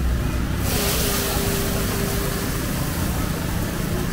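Busy outdoor night-market ambience: a steady low rumble like traffic or engines, with a hiss that comes up about half a second in.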